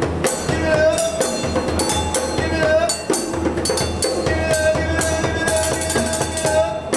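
Busking percussion jam: djembe hand drumming, drumsticks rapping on metal pots, and a gourd shaker keeping a steady groove. A repeating pitched melody rides over the drums, rising at the end of each phrase about every two seconds.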